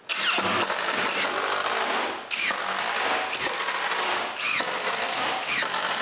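Cordless driver running screws into two glued layers of plywood, five screws one after another, about a second each, with the first run longer.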